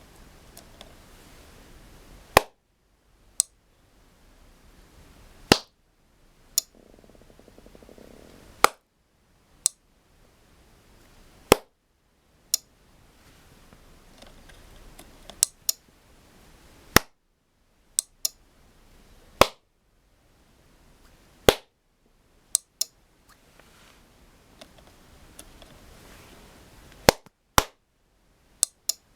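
Sharp hand claps, singly and in quick pairs, repeated every second or few to trigger a Velleman clap-activated on/off switch, with fainter sharp clicks in between.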